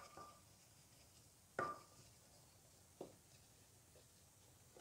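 Faint, short knocks on a car's alloy wheel as it is scrubbed by hand: one clear knock with a brief metallic ring about a second and a half in, a weaker one about three seconds in, and a few very faint ticks after.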